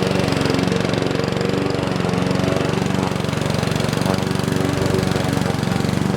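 Small petrol engine of a grass cutter running steadily while cutting tall grass.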